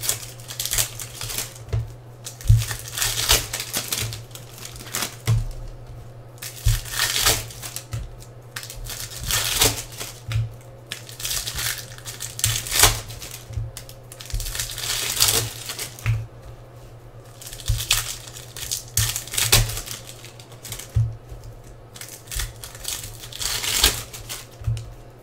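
Foil baseball-card pack wrappers crinkling and tearing as hands open them, in irregular crackly bursts, over a steady low hum.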